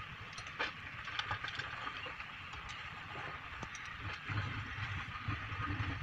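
Wheeled excavator's diesel engine running, a low rumble that grows louder about four seconds in, over a steady hiss, with scattered light metallic clicks and knocks.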